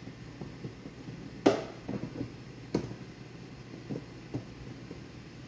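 A few scattered knocks and clicks from hands twisting a snowmobile fuel level sender and its plastic parts, the sharpest about a second and a half in, over a low steady hum.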